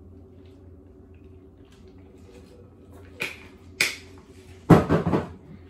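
Lip smacks from tasting a sip of drink: two short, sharp clicks about three seconds in, then a louder cluster of quick knocks near the end.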